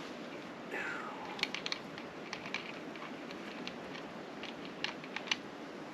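Scattered light clicks and taps of hands handling parts, with a short swish about a second in, over a steady background hiss.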